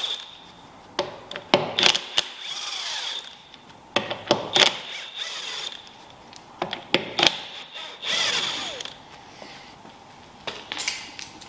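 A DeWalt XR cordless impact wrench undoing the wheel bolts, in a series of short bursts of rapid hammering with a high motor whine, with quieter gaps between them.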